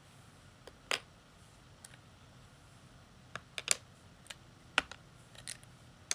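Plastic Lego bricks being handled, giving a scattering of sharp separate clicks, with a small cluster a little past the middle.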